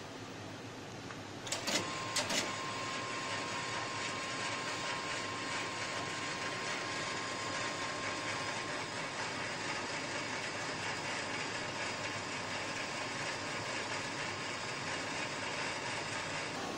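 A few sharp clicks about two seconds in, after which the steady whirring of the running Robotron R4201 computer cabinet grows louder, with a thin steady whine for several seconds.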